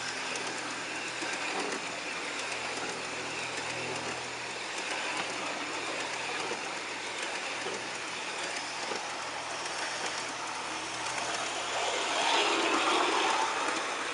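Model passenger train's cars rolling past on outdoor garden-railway track: a steady rolling rattle of wheels on rail with occasional clicks, louder for a moment about twelve seconds in.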